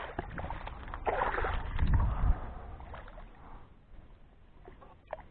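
Sharptooth catfish (barbel) thrashing and splashing in shallow water at the edge of the bank as it is landed, loudest between one and two and a half seconds in, then dying away to faint rustling with a single click near the end.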